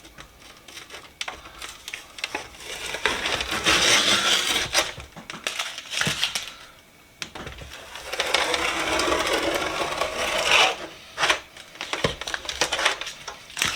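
Tape being peeled off a freshly painted toolbox: two long stretches of ripping, tearing noise, with small clicks and taps of handling between them.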